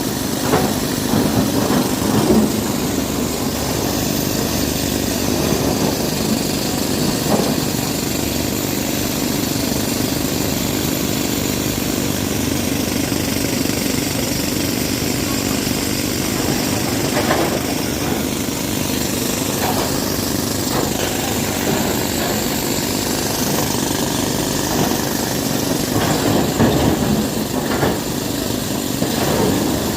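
Diesel engine of heavy earthmoving machinery running steadily under work, with a few short knocks and clanks through the middle and near the end.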